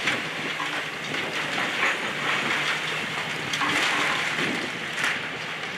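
Excavator's demolition grapple breaking into a brick wall: sharp knocks and cracks and a longer rush of falling brick and debris a little past halfway, over the steady hum of the excavator's diesel engine.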